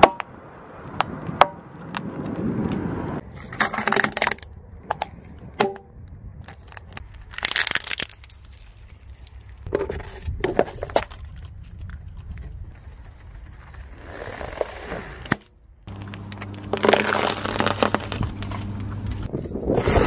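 A car tyre rolling over and crushing a series of small objects on asphalt: plastic syringes filled with jelly, a paper drink cup and cheese puffs. It comes in separate bouts of sharp cracks, snaps and crunching with quieter gaps between them.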